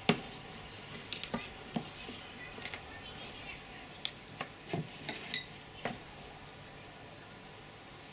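Small metal parts clicking and clinking as they are handled: aluminium crimps and tools knocking together, a dozen or so sharp ticks over about six seconds, the loudest right at the start, then nothing more.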